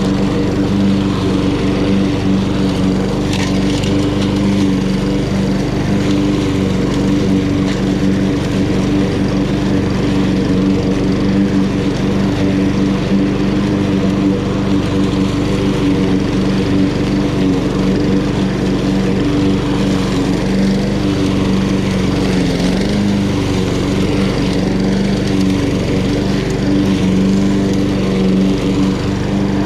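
Honda HRN216 walk-behind lawn mower's GCV170 single-cylinder four-stroke engine running steadily at mowing speed, its pitch sagging briefly once about three-quarters of the way through.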